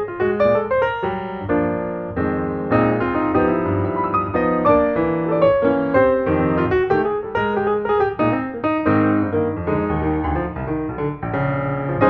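Background piano music, a steady run of notes with no pause.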